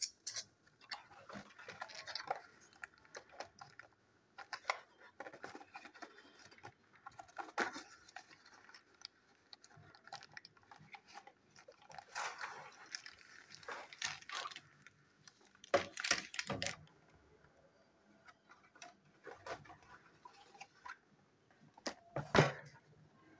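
Cardboard toy box and its packaging handled by hand while being opened: irregular rustling, scraping and clicking of flaps and inserts, with louder clattering bursts about two-thirds of the way through and again near the end.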